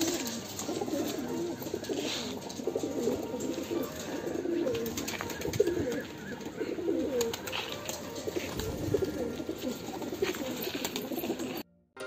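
Racing pigeons cooing, many low, warbling coos overlapping one another; the sound cuts off suddenly near the end.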